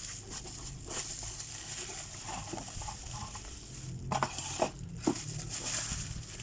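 Packaging being opened and handled, with rustling and crinkling and a few sharp clicks about four to five seconds in, as a washing machine circuit board is unboxed.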